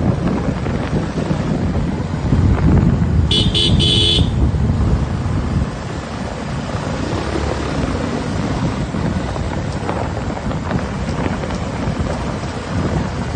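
Wind buffeting the microphone over the running noise of a moving vehicle on the road. About three seconds in, a horn sounds in a quick run of about three short beeps.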